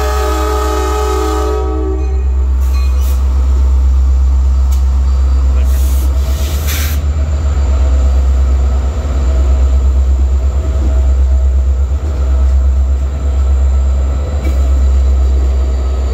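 Rebuilt EMD SD70MAC locomotive's horn sounding a chord that stops about two seconds in, then the loud, deep, pulsing rumble of two SD70MAC diesel locomotives passing close by, with a few short clanks from the wheels and cars.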